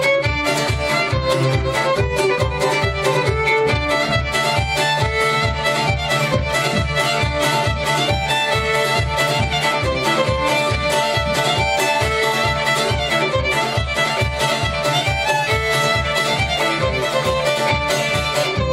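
Fiddle and bouzouki duo playing a lively polka. A steady low beat pulses a little over twice a second underneath the tune.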